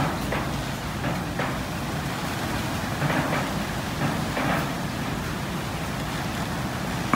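Several cats chewing raw chicken from metal bowls: short bursts of wet chewing, loudest about three and four and a half seconds in, over a steady low background rumble.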